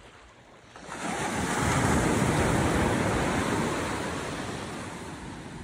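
A sea wave breaking and washing up the beach: a rush of surf that swells up about a second in and slowly dies away.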